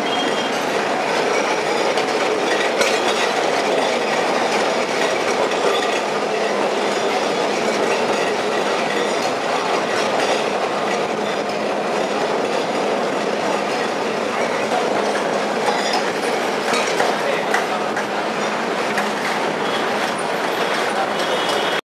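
Calcutta tramcar running along its street track: a steady rumble of wheels and running gear with scattered clicks and rattles. It cuts off suddenly at the very end.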